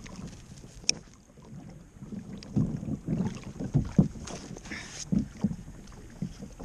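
Sea water slapping and lapping irregularly against a kayak's hull, with wind on the microphone and a sharp click about a second in.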